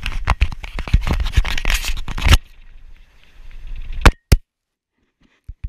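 Hand handling noise on a GoPro camera, rubbing and fumbling against the housing close to the microphone. Dense scraping and crackling for about two and a half seconds, then two sharp knocks about four seconds in.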